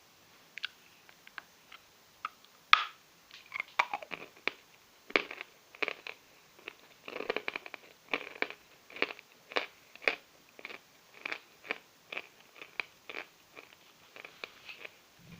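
Chalk being bitten and chewed: a train of dry, crisp crunches with one loud snap about three seconds in, then settling into steady chewing at about two crunches a second.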